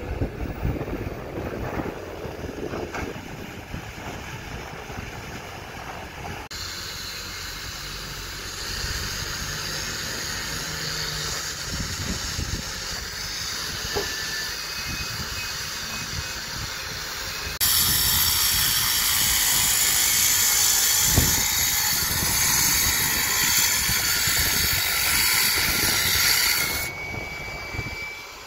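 A hydraulic excavator's engine running, with knocks of soil and stones, for about the first six seconds. Then a handheld angle grinder cutting steel rebar gives a steady high hiss, which gets much louder about ten seconds later and holds until near the end.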